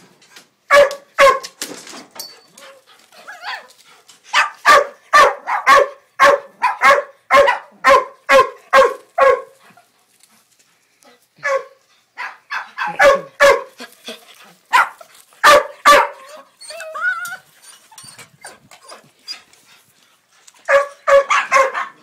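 A dog barking over and over at a bird out of reach overhead, in runs of quick, loud barks broken by short pauses: a long fast run in the first half and another run near the end.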